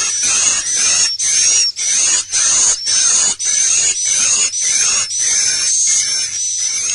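Swiftlet calls: the 'inap' roosting lure call played to draw edible-nest swiftlets into a nesting house, a rhythmic run of short, buzzy, high chirps about twice a second, each ending in a short rising whistle.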